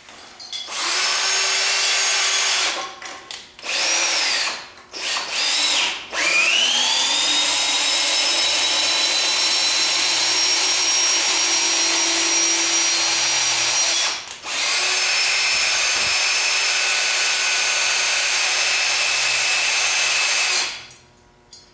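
Cordless drill motor whining as it drives a nail-puller attachment in reverse to rip a stripped 3-inch screw out of a 2x4. It runs in a few short bursts at first, spins up with a rising pitch about six seconds in, and then runs steadily for two long stretches.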